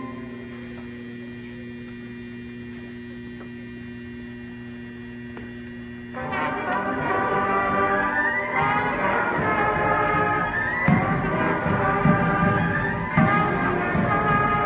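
Cadet band of trumpets, trombones, saxophones and drums playing: quiet held low notes for about six seconds, then the full band comes in loudly with a melody, punctuated by a few drum hits.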